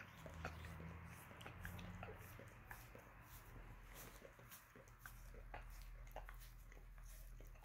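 A mixed-breed dog licking a person's bare toes: faint, irregular wet smacks and clicks of its tongue, a few a second.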